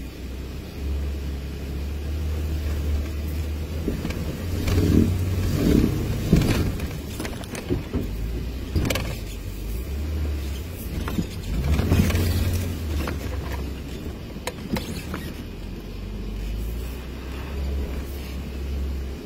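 An off-road vehicle's engine running at crawling speed, a low rumble that swells and eases, with several knocks and rattles from the vehicle lurching over rocks and ruts.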